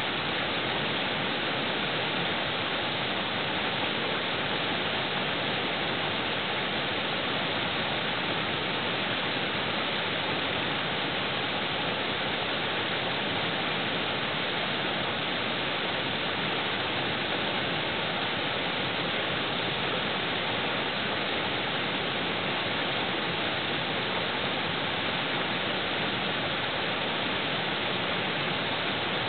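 Steady, unbroken rush of flowing water, like a creek or waterfall, holding at an even level throughout.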